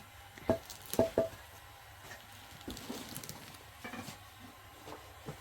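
Three sharp knocks of hard objects within the first second and a half, the last two close together, each with a brief ringing. Lighter scattered taps and rustling handling noises follow.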